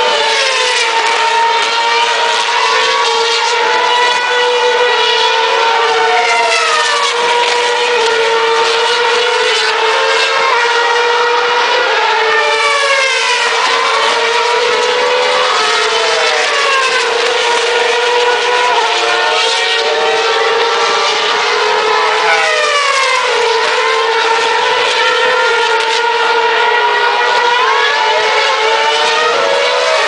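Open-wheel racing cars' V8 engines screaming continuously around the circuit, several at once, their pitch sweeping down and up as cars brake, shift and pass, over a steady high engine drone.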